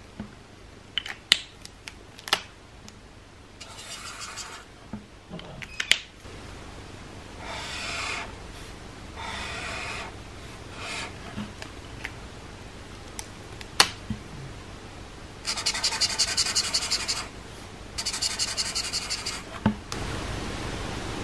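Felt tips of Typo Creative Dual alcohol markers scratching across paper as colour swatches are drawn, in separate strokes of a second or two, with a longer run of quick back-and-forth strokes filling a block in the later part. A few sharp clicks come between the strokes as the markers are handled.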